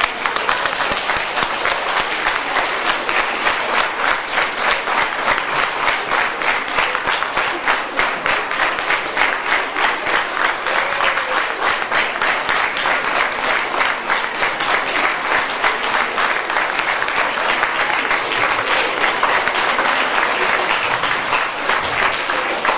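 Large audience applauding with dense, steady clapping.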